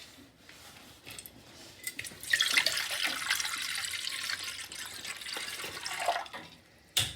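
Water running from a tap, starting about two seconds in and stopping after about four seconds, with a short clatter at the very end.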